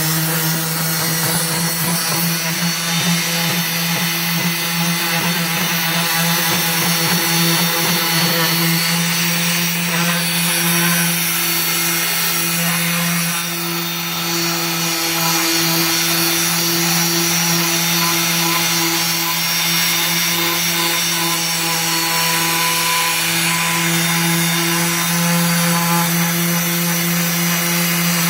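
Electric orbital hand sander running steadily with its sandpaper pad on a wooden board: a constant motor hum over the hiss of the paper on the wood.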